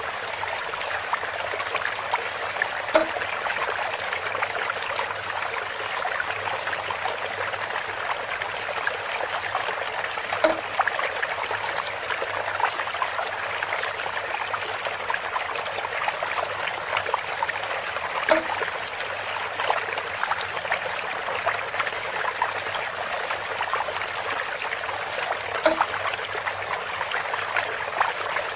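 Water trickling steadily through bamboo, with a short hollow knock four times, about every seven and a half seconds.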